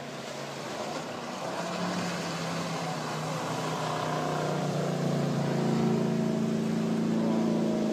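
Motorboat engine running and speeding up: its pitch and loudness rise over the first six seconds or so, then hold steady.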